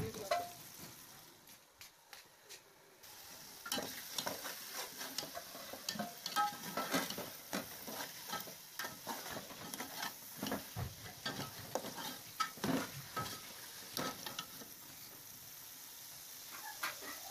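Long metal slotted spoon scraping and clicking against the side and bottom of a metal pot, stirring potato chunks into frying masala, with sizzling underneath. The scraping starts about four seconds in and goes on as repeated short strokes.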